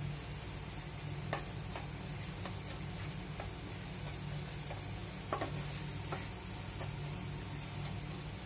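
Slotted spatula stirring and scraping a dry jaggery-and-coconut filling around a nonstick pan, with irregular light taps of the spatula against the pan, the two loudest about a second in and about five seconds in. A steady low hum runs underneath.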